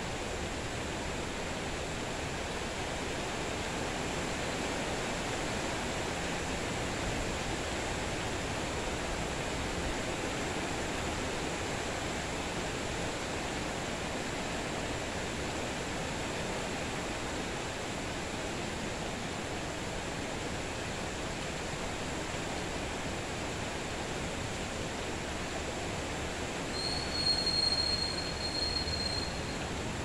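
Steady rain falling, an even hiss. Near the end, a single high, steady squeal sounds for about two seconds over the rain.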